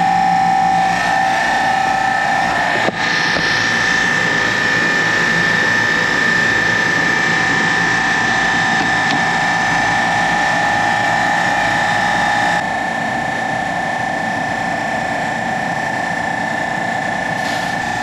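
Carrier commercial air-conditioning unit with a newly installed 06E semi-hermetic compressor running under charge, giving a loud, steady machinery drone with a high whine. The sound breaks briefly about 3 seconds in, and about 12 seconds in it drops slightly and the lower of the two whines stops.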